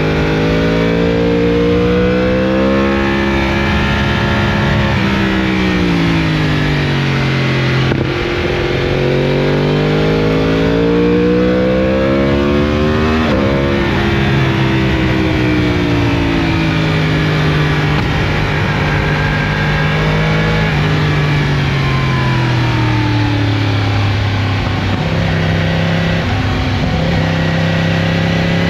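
Yamaha R1's crossplane inline-four running through an Akrapovic full exhaust system while riding. The revs climb and fall several times, with a sudden drop in revs about halfway through, then settle lower near the end.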